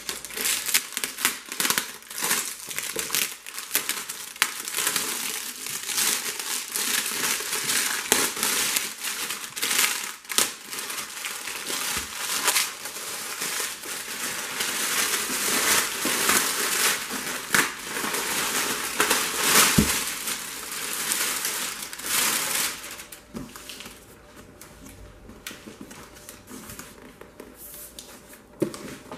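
Clear plastic shrink wrap crinkling and crackling as it is cut with scissors and pulled off a cardboard box, dense and irregular. It dies away about three quarters of the way through, leaving a few light knocks of the box being handled.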